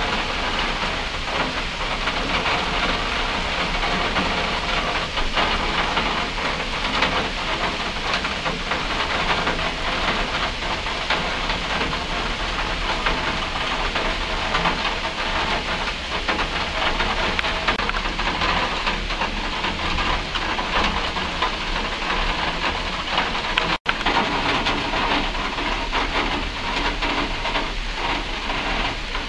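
Steady, heavy rain falling, a dense even sound of countless drops, with a split-second break in the sound about three-quarters of the way through.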